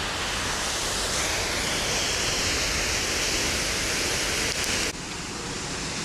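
Lower Düden Falls plunging off the cliff into the sea: a steady rush of falling water that dips slightly in level about five seconds in.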